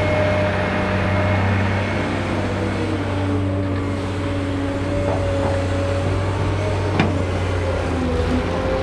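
Cat 385C LME large excavator's diesel engine and hydraulics running steadily at work, with a single sharp knock about seven seconds in.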